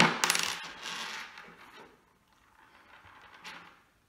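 Small metal parts clinking on a workbench: a sharp metallic click, then a brief clatter and scraping that dies away after about two seconds, with faint handling noises near the end.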